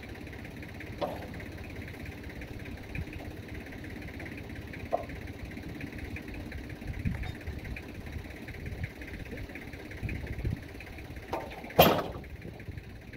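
A log being rolled over on the steel bed of a Wood-Mizer LT15 GO sawmill with a cant hook: scattered knocks and bumps, then one loud sharp clank near the end, over a steady engine hum.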